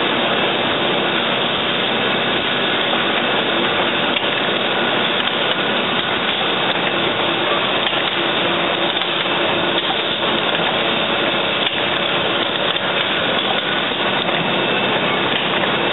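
Automatic needle assembly machine running continuously: a steady, dense mechanical noise with faint clicks scattered through it.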